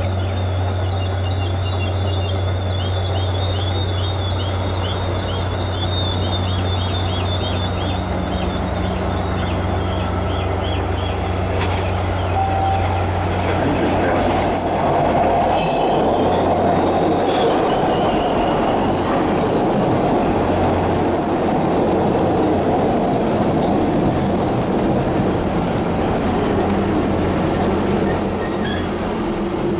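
Trains at a rail platform. First there is a steady low hum with a run of short, high wheel squeaks. From about halfway through, the louder rumble of an MBTA Orange Line subway train moving along the platform track takes over.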